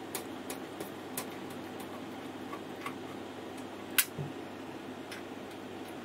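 Small sharp metallic clicks as a magnetic screwdriver backs out motherboard screws in a steel PC case: several quick clicks in the first second, then sparser ones, with one sharper click about four seconds in.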